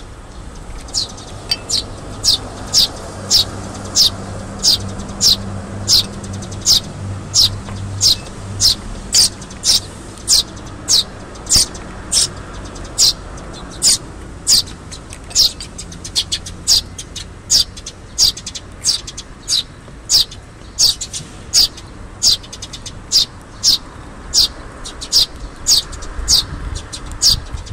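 Fledgling Eurasian tree sparrow begging with short, high chirps repeated evenly, about two a second, a sign that the young bird wants to be fed by the adult beside it.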